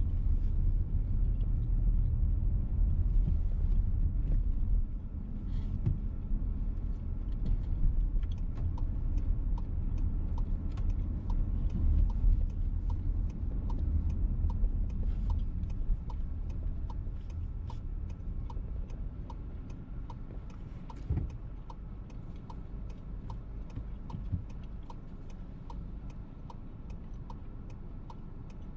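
VW T-Roc turn-signal indicator ticking evenly, about one and a half ticks a second, heard inside the cabin over the steady rumble of the car driving. The ticking starts about a third of the way in, and the rumble eases off toward the end as the car slows for the left turn.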